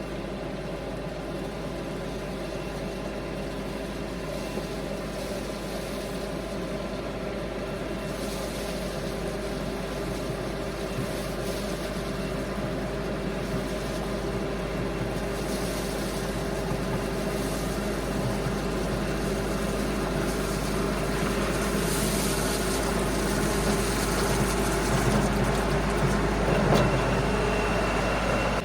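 Diesel engine of an LS MT357 compact tractor running steadily under work, slowly growing louder, with some added rushing hiss partway through.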